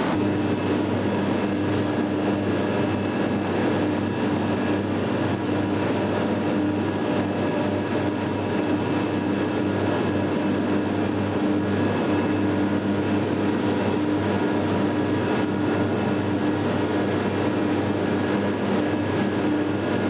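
Steady industrial drone of a steel mill's ladle furnace area: a constant noisy rumble with a low hum and a few steady tones over it.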